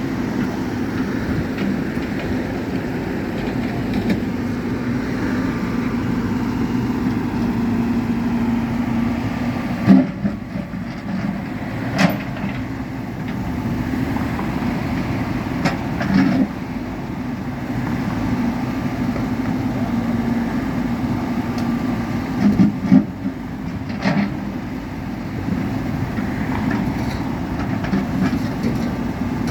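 A heavy engine running steadily with a low hum, with a few sharp knocks about ten seconds in, again a couple of seconds later, and twice near the end.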